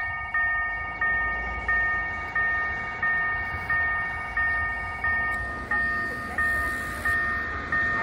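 Railway level-crossing warning bell ringing, a struck ding about one and a half times a second with a ringing tone after each stroke, over a low rumble. About five seconds in, one of its ringing pitches drops out and the tone changes.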